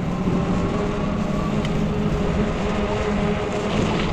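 Riding noise of a 20-inch fat-tire e-bike: a steady hum from the motor and fat tyres on wet pavement, under a rush of wind and road noise.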